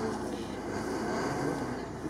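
Off-road car's engine revving hard as it is driven fast around the course, its pitch rising and falling with the throttle.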